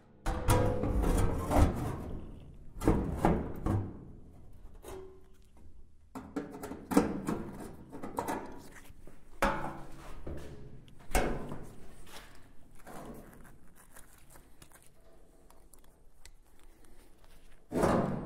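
Steel replacement floor pan section for a Triumph Spitfire being handled and fitted into the body shell: irregular clunks, knocks and sheet-metal rattles, loudest in the first four seconds and again near the end.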